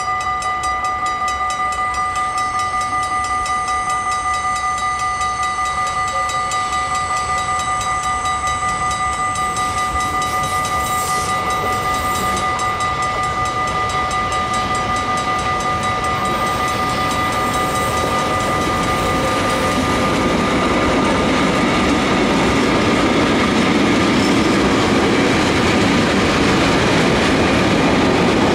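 Railion electric freight train approaching and passing close by, the rumble and clatter of its wagons growing louder over the last third. Through the first two-thirds a steady, rapidly pulsing signal tone sounds over it and fades out as the wagons go by.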